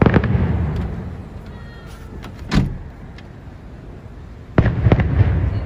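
Fireworks shells bursting: a heavy boom at the start that rumbles away over about a second, a single sharp bang about two and a half seconds in, and another boom near the end with a quick run of reports.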